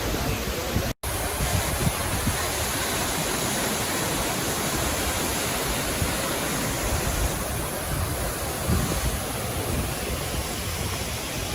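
Waterfall: a steady rush of falling water, broken by a brief cut to silence about a second in.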